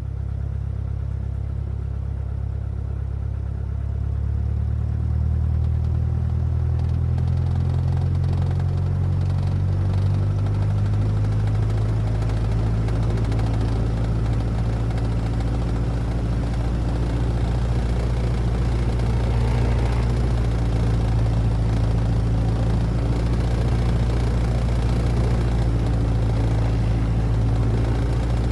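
Single-engine Cessna's propeller engine heard from inside the cabin while taxiing: a steady low drone that picks up slightly about four seconds in.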